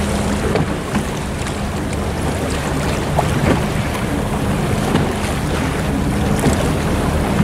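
Canal water lapping and splashing around a moving gondola, with wind buffeting the microphone and a steady low motor hum underneath.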